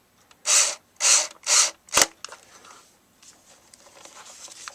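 Three short scraping rustles in quick succession, then a single sharp click about two seconds in, followed by faint rustling: hands handling small parts.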